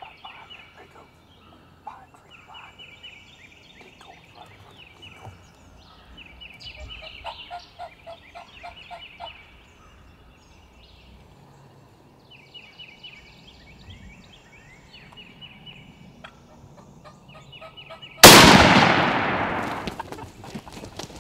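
Eastern wild turkey gobbler gobbling repeatedly. About 18 seconds in comes a single very loud shotgun blast that rings out and fades over a couple of seconds.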